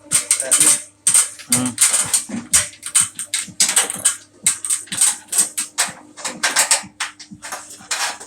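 Rapid, irregular rasping and clicking strokes of a hand tool working on metal, ratchet-like, during disassembly of a fan coil unit to take out its blower motor. A faint steady hum runs underneath.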